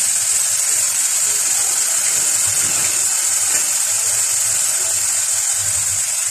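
Grated onion and whole spices frying in oil in a kadai: a steady, high sizzling hiss.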